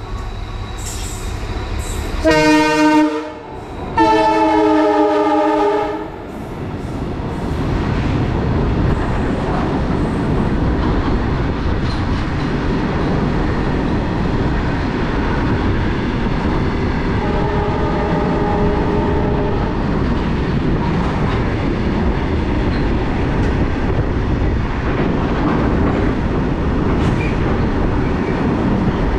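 Indian Railways locomotive horn sounds two blasts about two seconds in, the second one longer, then a freight train of flat wagons runs past with a steady rumble and rattle of wheels on rail.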